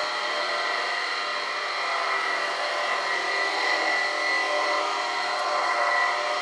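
Electric rotary floor-cleaning machine running steadily, its pad spinning over a wet wood floor. The motor gives an even whine made of several steady tones.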